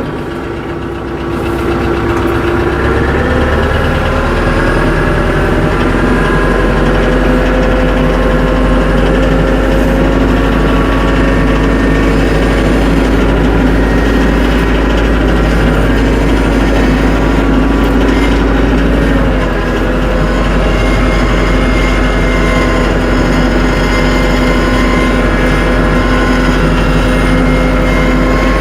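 A TYM 474 compact tractor's diesel engine revs up over the first few seconds, then runs steadily at higher revs, with a brief dip a little past the middle.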